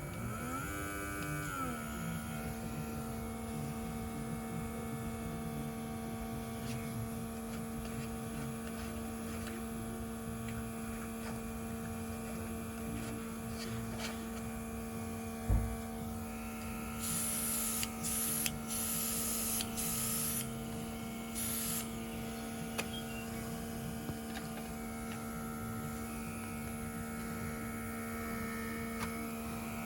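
Small airbrush compressor motor starting up, its hum rising in pitch over the first two seconds and then running steadily. A little past halfway comes a single thump, followed by several short hisses of the nail-art airbrush spraying model paint.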